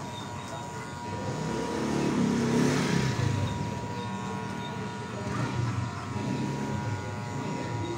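Electric hair clippers buzzing steadily as they trim a child's hair, with street traffic swelling louder about two to three seconds in.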